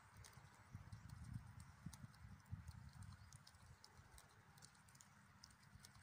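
Faint, quick, irregular clicks and snips of an Egyptian goose cropping grass with its bill, over a low rumble.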